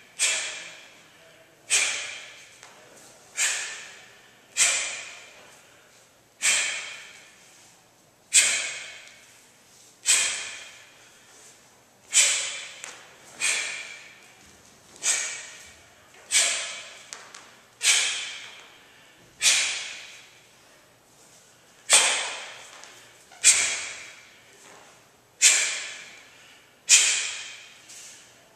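A Taekwon-Do practitioner's sharp, hissing exhalations, one forced breath with each technique of the pattern, about one every second and a half, each dying away quickly.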